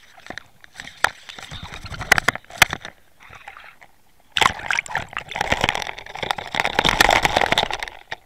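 Water sloshing and gurgling around a camera held in the water. There are scattered sharp clicks in the first few seconds, then a denser stretch of churning from about four seconds in until just before the end.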